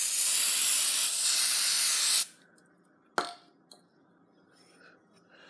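Aerosol lubricant spraying from a can onto a bike peg's threads, one steady hiss that stops about two seconds in, used to free a stuck peg. About a second later, a single sharp click.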